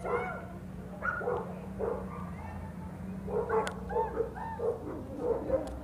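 A dog barking repeatedly, a few single barks and then a quicker run of them from about three seconds in, over the steady low running of a truck's engine.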